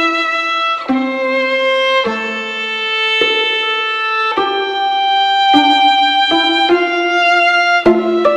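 Background instrumental music: a melody of held notes, each lasting about a second, with a clean attack at each change of note.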